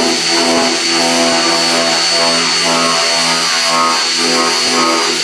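Grinder with a stripper wheel running steadily under load with a high whine, grinding body filler off a truck bed's sheet metal.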